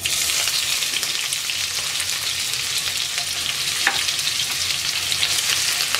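Sliced onion dropped into hot oil with cumin seeds in a karahi: the oil starts sizzling and crackling the moment the onion goes in, then keeps up a steady, loud sizzle as the onion fries.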